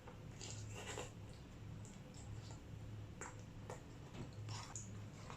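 Faint chewing with scattered small mouth clicks as someone eats shawarma, over a low steady hum.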